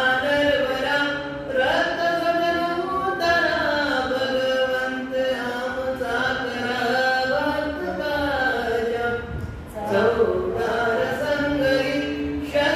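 A man chanting a Buddhist devotional verse into a microphone, in long held, melodic phrases with short breaks for breath about 1.5 and 10 seconds in.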